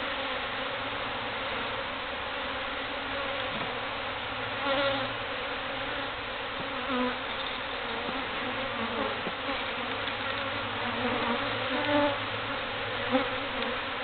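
Dense, steady buzzing of many feral honey bees flying around a colony that has been cut open, with single bees passing close now and then, their buzz swelling and fading.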